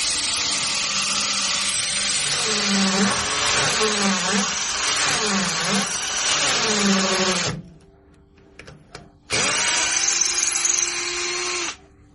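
Electric power drill running in two long bursts, the first about eight seconds and the second about two and a half, its motor pitch wavering up and down under load. It stops suddenly between the bursts.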